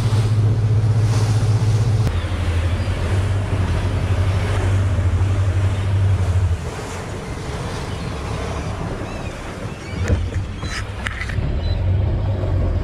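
Motorboat running at speed across choppy water: a steady engine drone under the hiss of spray and wind. The engine note steps down about two seconds in and falls away at about six and a half seconds as the boat throttles back, with a few short knocks near the end.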